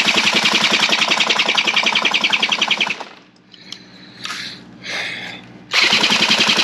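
A drill spinning an old two-stroke outboard motor over in place of its broken pull starter: a fast, even chatter. It stops about three seconds in, with a few knocks in the pause, and starts again near the end.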